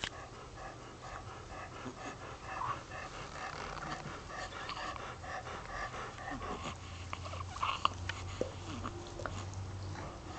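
Snuffly, rhythmic breathing broken by a couple of short, sharp sneezes about eight seconds in.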